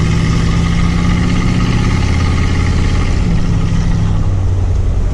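Chevy 350 small-block V8 running steadily through its new dual exhaust, heard from inside the cab. Its deep note dips slightly about three seconds in.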